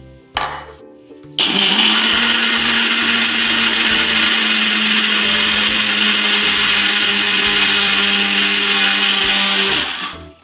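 Electric mixer grinder (mixie) grinding dry urad dal and rice into powder. It starts abruptly about a second and a half in, runs at a steady pitch with a hum and a loud grinding rush, and shuts off near the end.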